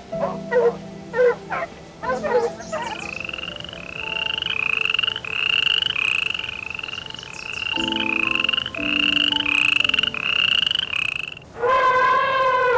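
Short yelping calls, then a steady run of short, high, slightly rising animal calls about one and a half a second. A louder call falling in pitch comes near the end.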